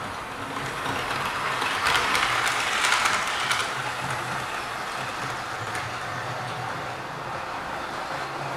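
Model railway train, a class 25 diesel locomotive hauling a Blue Pullman trailing car, running along the track: a steady rattle of wheels on rail with the motor's hum. It is louder, with a run of clicks, from about two to three and a half seconds in, then settles to a steadier hum.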